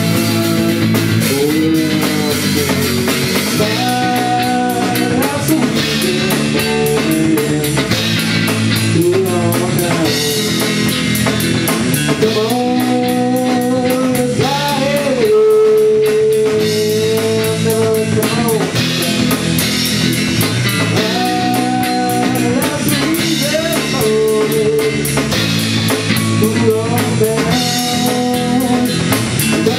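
Music: a blues-rock instrumental passage, with a guitar playing a melodic line with bent notes over a drum kit.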